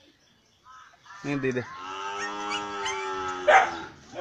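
A dog barks once about a second in, then gives a long, slightly falling howl of over two seconds, with a sharp bark near its end.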